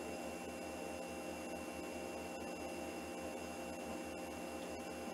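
Quiet room tone: a steady low electrical hum under a faint hiss.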